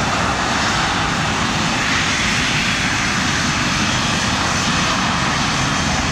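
English Electric Lightning's two Rolls-Royce Avon turbojets running as the jet taxies past: a steady, loud jet roar.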